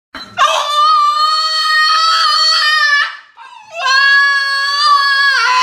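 A small dog howling: two long, high, steady howls with a short break between them, the second one dropping in pitch at its end.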